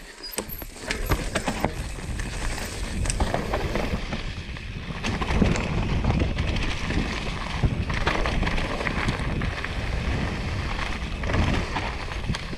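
Mountain bike descending a rough dirt trail: tyres rolling over earth and roots, with the bike knocking and rattling over bumps and wind buffeting the microphone.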